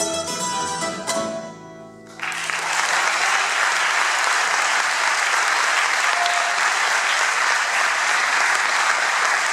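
A Colombian Andean string trio (tiples, requinto and double bass) ends a piece on a final plucked chord that dies away. About two seconds in, audience applause breaks out and continues steadily; the applause is the loudest sound.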